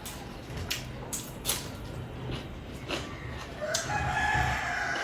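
Scattered eating clicks and smacks from chewing, then a rooster crowing in one long call near the end.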